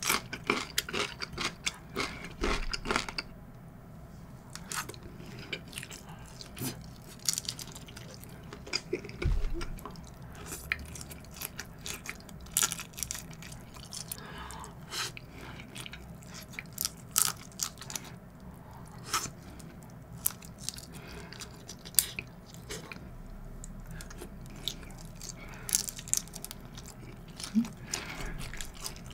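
A person chewing and biting large-shrimp nigiri sushi, with many sharp, irregular wet mouth clicks through the chewing.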